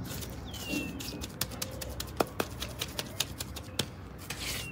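Steel hand trowel clicking and scraping against fresh cement mortar as it is pressed into the base of a block wall, a quick irregular run of sharp clicks.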